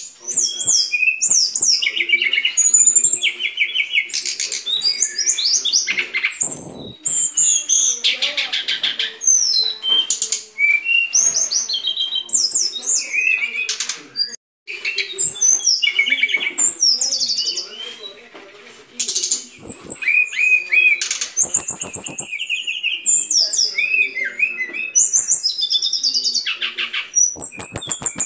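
Brown-chested jungle flycatcher singing a fast, varied song of high whistled phrases and rapid repeated-note trills, with a brief break about fourteen seconds in.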